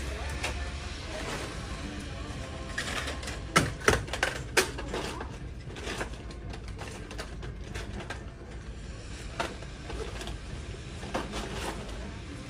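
Packaged goods clattering and knocking together as they are pulled from store shelving and stuffed into a shopping bag, with a quick run of sharp knocks about three and a half to five seconds in and a few lighter ones later, over a steady low hum.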